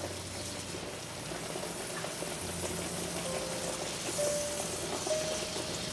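Butter melting and sizzling in a frying pan over medium heat, a steady even hiss, with the soft scrape of a spatula stirring it.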